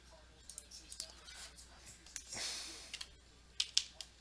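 Scattered clicks of a computer mouse and keyboard, with two louder clicks near the end and a short rushing hiss a little past halfway.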